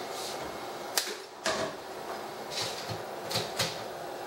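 A few light clicks and knocks of laboratory items, such as a micropipette and a reagent bottle, being handled and set down on a bench, over a steady room hiss.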